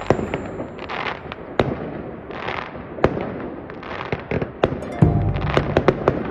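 Fireworks going off: a string of sharp bangs and crackles with short hissing bursts between them, over background music that grows louder near the end.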